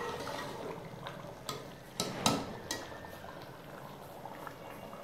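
Chicken bubbling in a thin yogurt sauce in a metal pot, still watery and being cooked down. About two seconds in, a metal spatula clicks and scrapes against the pot a few times.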